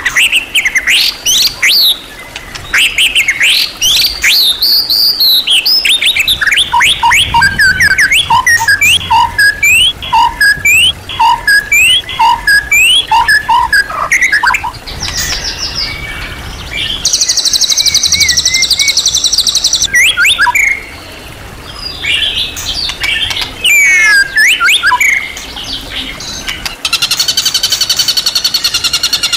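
White-rumped shama singing a long, varied song packed with mimicked phrases: sweeping whistles, a run of short repeated whistles in the middle, and buzzy rattling trills later on.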